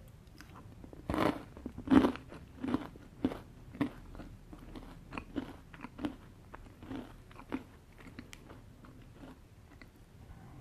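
A person chewing a mouthful of chocolate cake with mocha frosting close to the microphone: a run of chewing sounds about two a second, loudest near the start, that fade out after about seven seconds.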